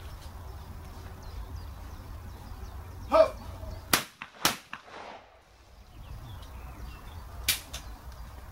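A short shout, then two shotgun shots about half a second apart as a trap shooter fires both barrels at a clay; another single shotgun shot comes about three seconds later.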